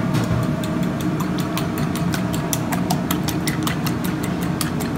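Fork beating eggs in a small ceramic bowl, tapping against the bowl in a quick, even rhythm of about six clicks a second, over a steady low background hum.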